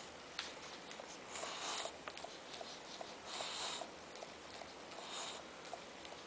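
English bulldog puppy sniffing and snuffling close to the microphone, three short breathy snuffles about two seconds apart, with light clicks in between.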